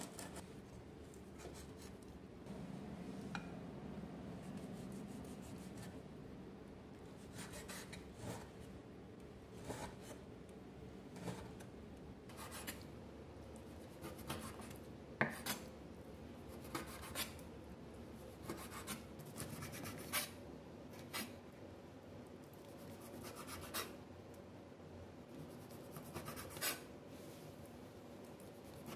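Kitchen handling sounds: rubbing and scraping with scattered light clicks and taps, over a faint steady hum.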